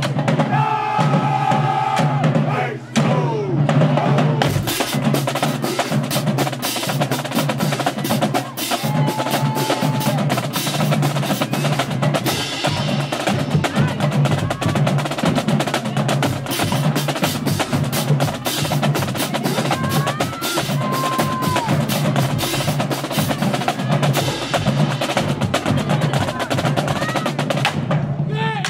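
Marching band drumline playing a fast, unbroken cadence, snare drums to the fore with rapid strokes and rolls.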